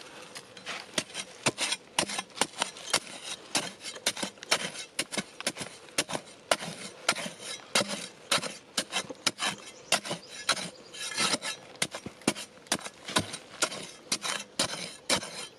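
A narrow-bladed metal digging tool repeatedly stabbing and scraping into dry, sandy soil, loosening and scooping out earth in quick irregular strokes, about two or three a second.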